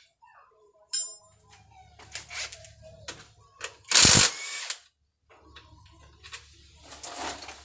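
Metal clicks, clinks and knocks of hand tools and loosened parts as a motorcycle's handlebar and front end are taken apart. About four seconds in comes one loud, harsh burst lasting under a second, the loudest sound.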